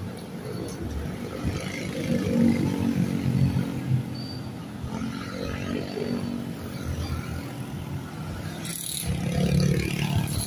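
Roadside traffic: jeepney and motorcycle engines passing, their sound rising and falling, with a motorcycle going by close near the end.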